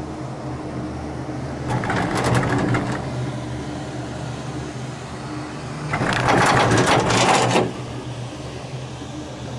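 Six-seat Leitner gondola cabin clattering as its grip runs over a tower's roller train, about two seconds in, and again, louder and for over a second, around six seconds in as it nears the station. A steady low hum underneath.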